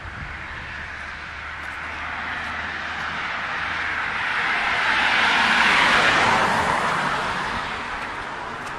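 A car driving past: its tyre and road noise swells steadily, peaks about six seconds in, then fades away.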